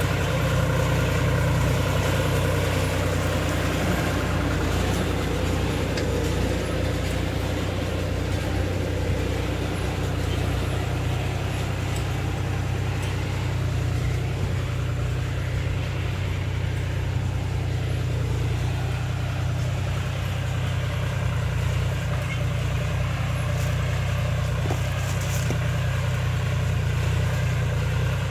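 John Deere 5105 tractor's three-cylinder diesel engine running steadily while pulling a mouldboard plough through the soil.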